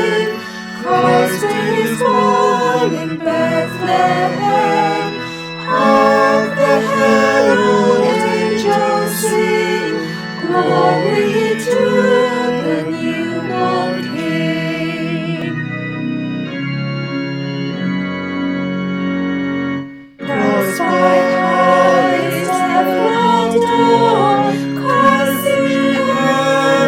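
Organ-led music with a melody moving over sustained chords. About three-quarters of the way through it thins to a long held chord, breaks off briefly, then starts up again in full.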